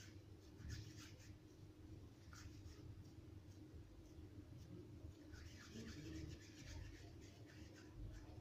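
Faint scratchy rustling of hands rubbing and gathering crumbly, sandy ghriba dough against a clay bowl. It comes in two spells, about a second in and again from about five to seven seconds in.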